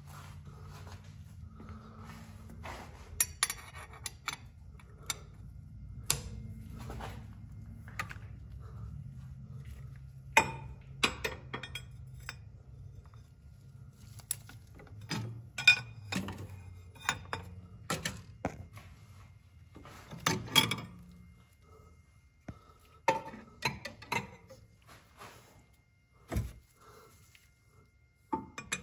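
Irregular metallic clicks, clinks and thunks of a hand tool turning a harmonic balancer installation tool, pressing a Fluidampr balancer onto an LS crankshaft snout. A low steady hum runs beneath and stops about three-quarters of the way through.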